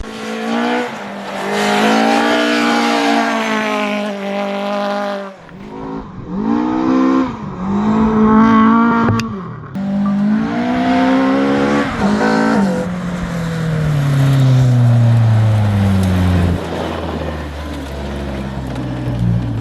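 Rally car engine revving hard, its pitch climbing and dropping with gear changes, with abrupt breaks in the sound. Over the last few seconds the engine note slides steadily down as the car slows, then settles lower.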